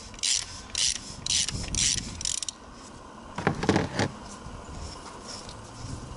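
Socket ratchet clicking in about six quick strokes, roughly two a second, as a 32 mm socket unscrews the oil filter housing cap on a Mk7 GTI's engine. A single louder clatter of metal follows at about three and a half seconds.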